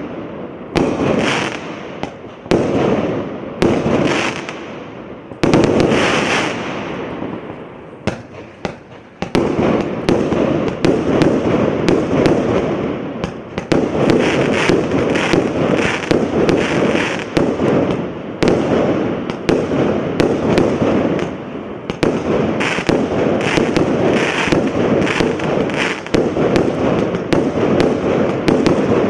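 A 244-shot firework cake (barrage) firing: a quick series of shots and bursts with crackle. The shots come about one a second at first, then turn into a faster, almost continuous volley about nine seconds in.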